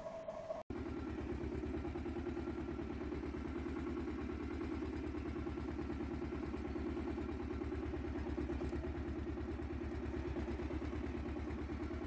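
Small 30 hp Antonio Carraro tractor's diesel engine running steadily with an even, rapid pulse as the tractor drives along. A short, different steady hum stops at a brief cut just under a second in.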